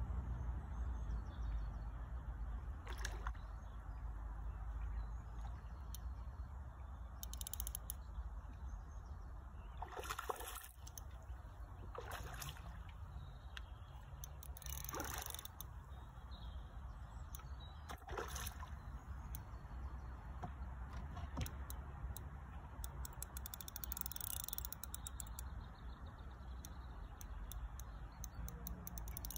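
A handful of brief water splashes and sloshes near the landing net, over a steady low rumble.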